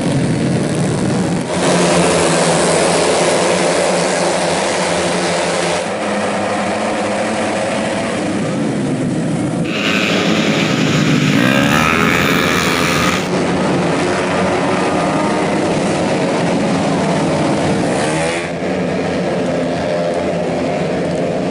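Tuned 131cc automatic race scooters running at high revs, engine pitch rising and falling as they pass. The sound changes abruptly several times.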